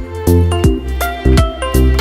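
Background music with a steady beat: a deep bass line and a sharp percussive hit about twice a second.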